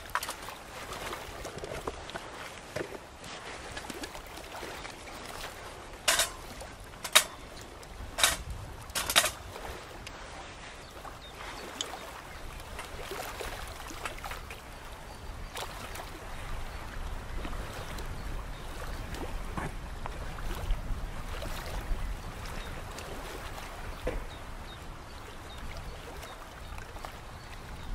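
Small waves lapping and trickling on a shoreline, a steady watery wash, with four sharp clicks about a second apart a few seconds in and a low rumble growing in the second half.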